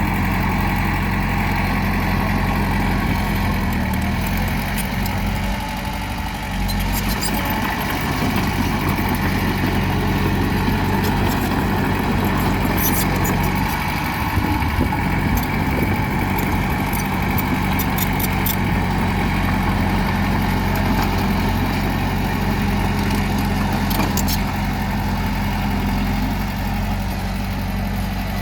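Bulldozer diesel engine running steadily, with scattered sharp clicks at times over it.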